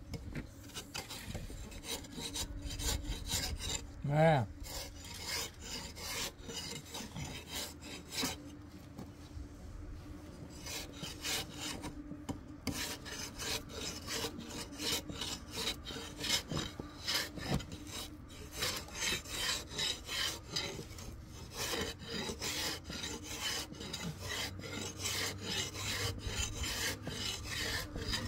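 A hand tool rasping or scraping wood in repeated back-and-forth strokes, about two a second, with a brief pause about twelve seconds in. A short pitched squeak-like sound stands out about four seconds in.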